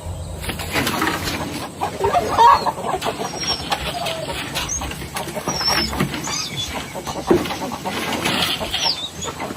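Chickens clucking and squawking in short broken calls, with wing flapping and scuffling.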